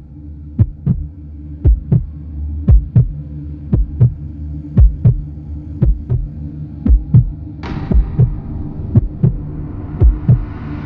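Suspense heartbeat sound effect: paired lub-dub thumps about once a second over a steady low drone. A hissing layer comes in about eight seconds in and swells near the end.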